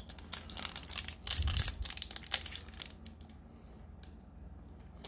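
Foil Pokémon booster pack wrapper being torn open and crinkled by hand, a dense crackle for the first two and a half seconds, then only faint scattered rustles.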